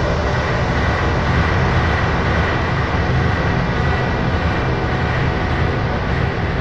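Synthesized sci-fi space ambience: a steady, dense rumbling drone with faint held tones above it.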